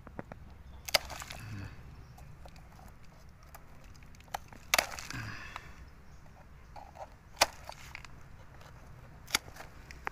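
Pruning shears snipping through the fibrous roots of a coconut palm: four sharp snips a couple of seconds apart, with smaller clicks in between.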